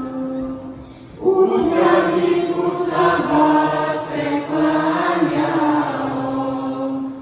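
Mixed choir of boys and girls singing a Bosnian ilahija (Islamic devotional song) in long held notes; a held note fades out in the first second, then the full choir comes in together about a second in.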